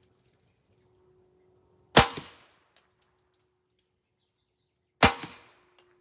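Two suppressed rifle shots, about three seconds apart, from a 16-inch POF .300 Blackout carbine fitted with a Silencerco Hybrid 46M suppressor and firing subsonic loads. Each shot is a sharp report with a short fading tail, followed a moment later by a faint tick.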